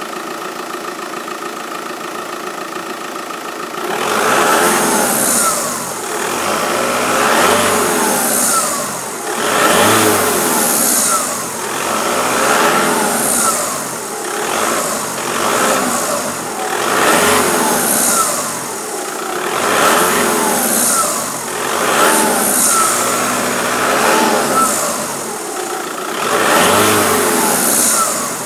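Seat Altea engine idling steadily, then revved repeatedly from about four seconds in: about ten blips, roughly every two to three seconds, each with a high hiss that rises and falls with the revs. It is recorded as a strange noise the owner has not identified.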